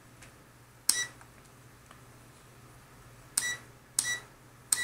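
Neoteck autoranging digital multimeter beeping as its rotary selector dial is turned to new settings: four short, high beeps, one about a second in and three close together near the end.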